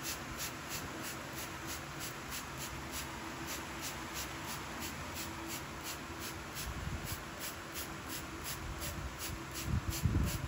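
Plastic trigger spray bottle misting potted plants, pumped in quick, even squirts of hiss about three a second.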